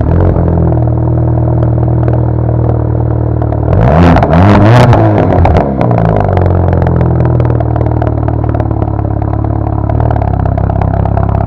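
Exhaust of a 2015 Volkswagen GTI's turbocharged 2.0-litre four-cylinder with the rear muffler removed, idling loudly. About four seconds in it is revved once, rising and falling over about two seconds with crackles near the top, then settles back to idle.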